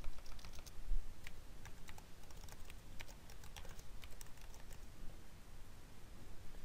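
Faint keystrokes on a computer keyboard, uneven clicks as a terminal command is typed.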